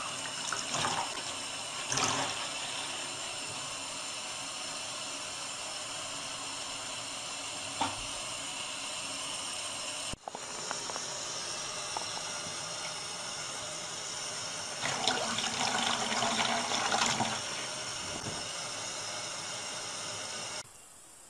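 Water running steadily into a basin, with a brief break about ten seconds in before it resumes. A louder rush of water lasts about two seconds, starting about three-quarters of the way through.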